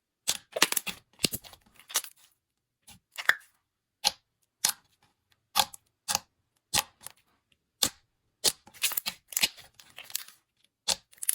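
Slime being pressed and poked by hand, giving sharp sticky pops and clicks about once or twice a second, with denser crackling runs about a second in and again near nine seconds.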